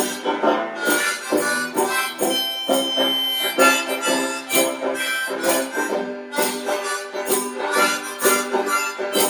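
Blues band playing an instrumental break, a harmonica carrying the melody over the band's steady rhythm.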